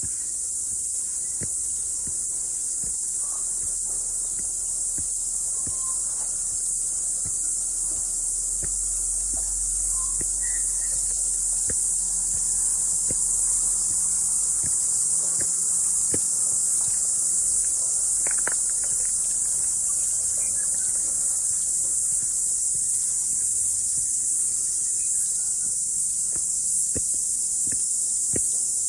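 A chorus of cicadas singing: a steady, continuous high-pitched drone.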